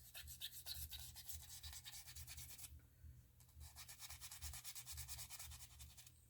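Rapid, faint scrubbing strokes on the iPhone 13's frame as old screen adhesive and dust are cleaned off, in two spells with a short pause about halfway through.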